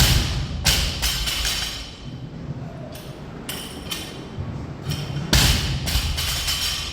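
Heavy thuds of weighted gym equipment landing on the floor, two loud ones at the start and about five seconds in, with lighter knocks between them, over background music.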